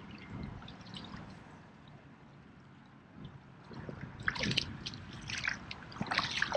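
Water splashing and dripping around a freshly landed large catfish as it is handled, with scattered short splashes that grow more frequent in the last couple of seconds.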